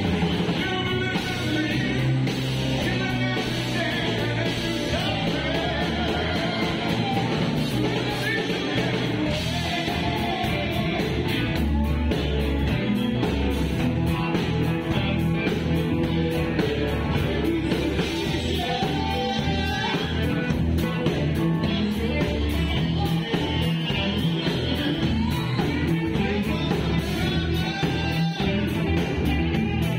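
Live rock band playing: two electric guitars, electric bass and a drum kit, with steady, continuous playing.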